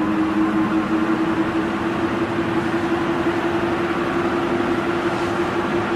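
Ceiling fan running steadily: a constant motor hum under an even rush of moving air.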